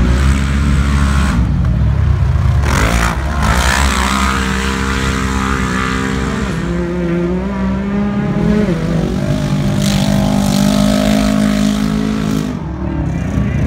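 Racing UTV side-by-side engine running at high revs, accelerating as it passes and pulls away down a dirt track. The pitch rises and falls several times with throttle and gear changes, with a brief loud rush of noise about three seconds in.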